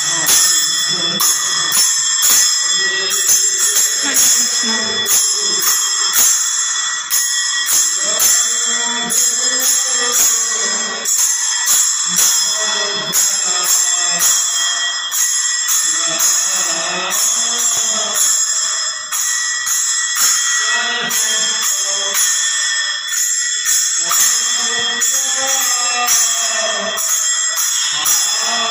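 Devotional kirtan singing: a voice sings a melody over small brass hand cymbals (kartal) clashing in a steady beat, their ringing carrying through.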